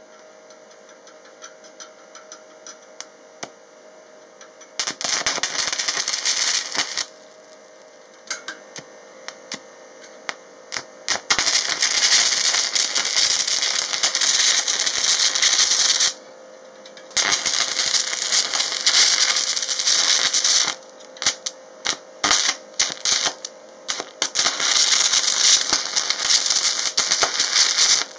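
Stick (MMA) arc welding of thick aluminium with a coated aluminium electrode at 160 amps: the arc crackles and spatters loudly. It is hard to strike and hold, starting with scattered scratching clicks, catching briefly about five seconds in, then burning in longer crackling runs that cut out and restart several times.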